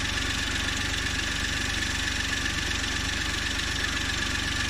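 Suzuki Every's K6A turbo three-cylinder engine idling steadily, a low, even rumble.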